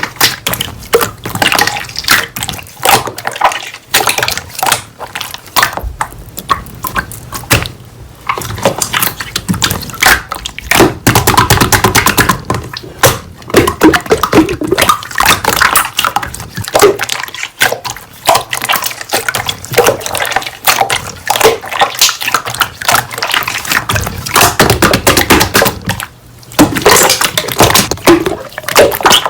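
Slime being squeezed, stretched and pressed by hand, making a constant stream of wet, sticky clicks and pops.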